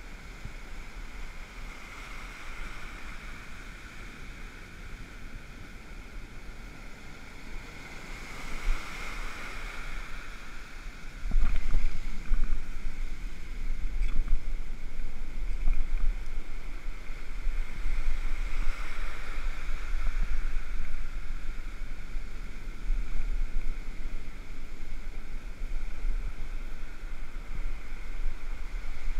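Rough ocean surf washing up the beach, with wind rumbling on the microphone; the wind rumble turns louder and gustier about eleven seconds in.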